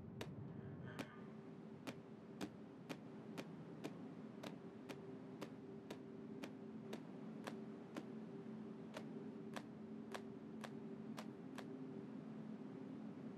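Sharp, evenly paced ticks, about two a second, over a low steady hum; the ticking stops shortly before the end.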